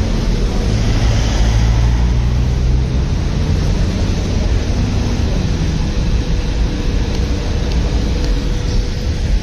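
Steady, loud low rumble of road vehicle noise, with a low engine note standing out for a couple of seconds near the start.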